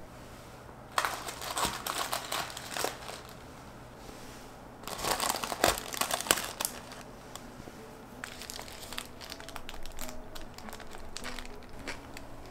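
Paper sandwich wrapper crinkling as a toasted sandwich is handled in it. There are two bursts of crinkling a few seconds apart, then lighter crackles.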